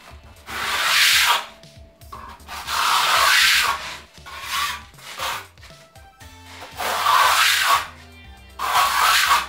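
Hand trowel scraping wet cement plaster across a wall in about five long sweeping strokes, each a second or so long, over faint background music.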